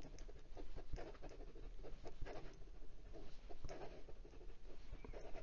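Hero 360 fountain pen's tiny four-sided metal nib scratching across notebook paper in quick cursive strokes, with small irregular clicks among the strokes. The nib is scratchy in every direction, its eight edges unsmoothed, and the pen clicks in some directions from something loose inside.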